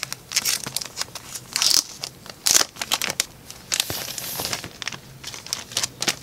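Thin plastic bag crinkling in quick, irregular crackles as it is pulled off a phablet.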